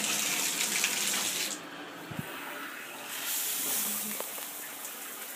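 Tub shower running on hot water only, the spray from the handheld shower head making a steady hiss, louder for about the first second and a half.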